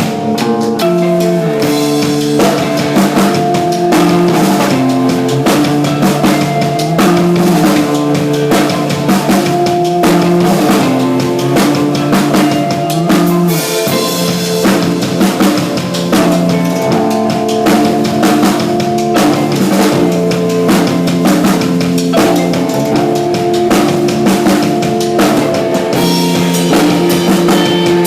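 A live rock band playing: a full drum kit with bass drum, snare and rimshots under sustained pitched instrument lines.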